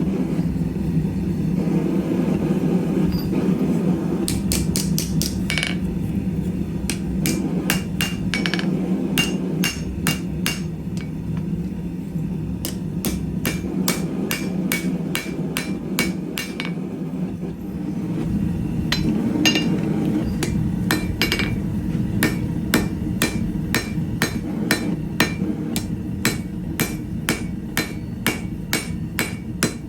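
Hand hammer striking hot square steel stock on an anvil, a long run of blows about two a second with a short pause partway, many of them ringing. A steady low hum runs underneath.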